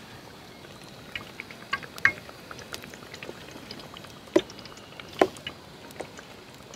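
Batter-coated raw banana slices deep-frying in hot oil: a steady sizzle dotted with sharp crackles and pops, a few of them loud.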